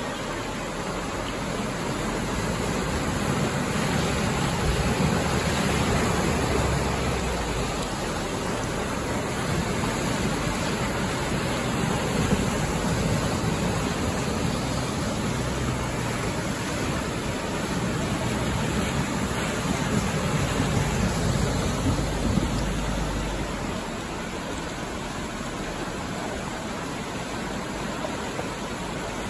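Steady rush of flowing river water, with a low rumble underneath that swells soon after the start and drops away about three-quarters of the way through.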